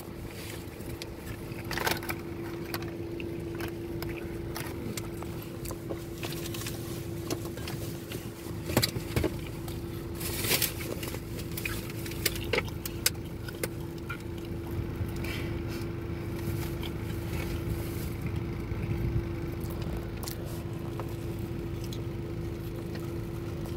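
Steady low hum of a car heard from inside the cabin, with one constant droning tone. Scattered short crunches, crackles and rustles come from a crisp-battered corn dog being bitten and chewed.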